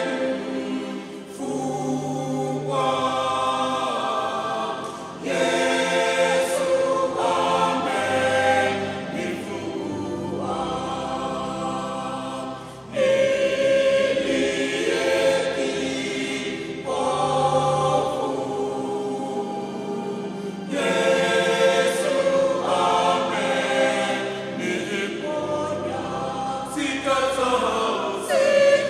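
Mixed choir of women's and men's voices singing in sustained chords, in long phrases with short breaks between them.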